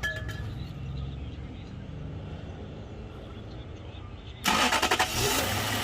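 Lexus LS 430 4.3-litre V8 cranking on the starter, then catching and starting with a sudden loud burst about four and a half seconds in. It now starts because the faulty fuel pump cut-off relay has been replaced.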